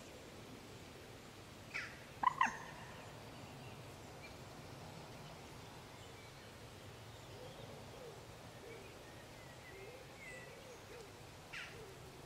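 Mute swan cygnets peeping: short, sharp calls that fall in pitch, three close together about two seconds in and one more near the end. Fainter, lower calls come in between.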